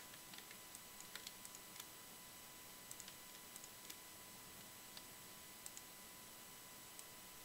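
Faint, scattered clicks from a computer mouse and keyboard over near-silent room tone, most of them in the first two seconds, with a faint steady high electrical whine underneath.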